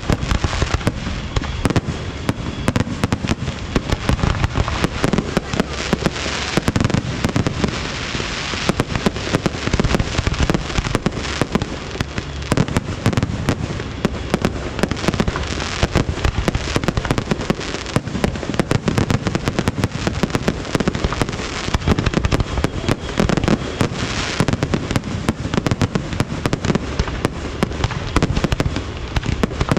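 Fireworks display, a dense, continuous barrage of bangs and crackling pops without a break.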